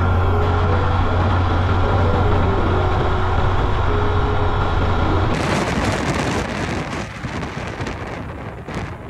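Steady low drone of a car driving on the highway. About five seconds in it breaks off abruptly into a rough, gusting rush of wind on the microphone.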